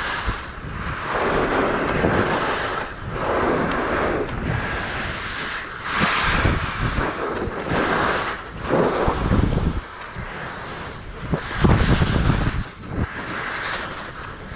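Wind buffeting the camera microphone while skiing downhill, with skis hissing and scraping over packed snow. The noise surges and eases every second or two as the skier turns.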